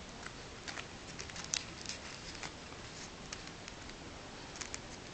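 Origami paper being folded and creased by hand: scattered soft crackles and rustles with a few sharper ticks, the loudest about one and a half seconds in.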